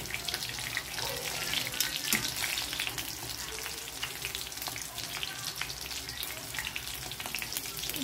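Breaded chicken pieces frying in shallow hot oil in an aluminium wok: a steady sizzle dotted with many small crackling pops of oil.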